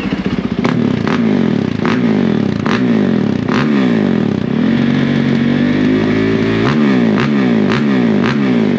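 2019 Yamaha YZ450F's single-cylinder four-stroke engine revved in a sound test: quick blips of the throttle, the pitch rising and falling again and again, with one longer held rev about two-thirds of the way through and sharp cracks between the blips.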